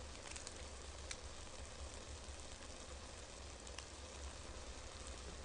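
Nongshim stir-fried Neoguri ramen noodles sizzling quietly in a pot over the heat, with a few faint crackles and a low hum underneath.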